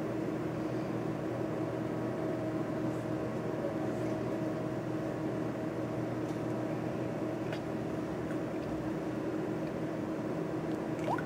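A steady low hum with a faint steady tone in it, and a short rising chirp near the end.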